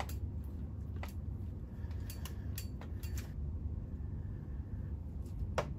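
Backcombing strokes through a wig's hair: several short, high rasping swishes at irregular intervals, over a steady low hum.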